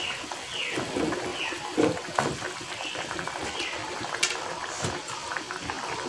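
Fried fish-roe fritters being dropped one at a time into simmering curry gravy, making irregular soft plops and splashes over the gravy's low bubbling.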